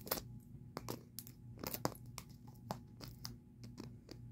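Scissors cutting and prying at the glued plastic seal of a plastic toy capsule ball: irregular small snips, clicks and plastic crinkles, a few a second.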